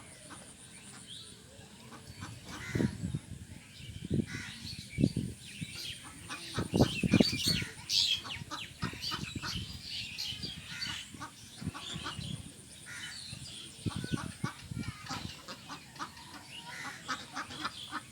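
Ducks quacking in a series of short, irregular calls, busiest and loudest in the first half.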